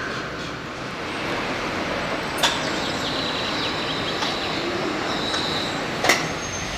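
Steady outdoor town and building-site noise, an even hiss of distant traffic and work, with a faint high whine in the middle and two sharp knocks, one about two and a half seconds in and one near the end.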